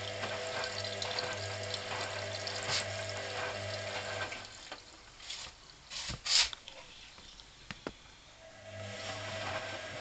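Hoover CA232 front-loading washing machine tumbling its load in rinse water: the drum motor hums steadily under sloshing water. The motor stops about four seconds in, leaving a pause with a few splashes, the loudest a little after the middle, and starts again near the end.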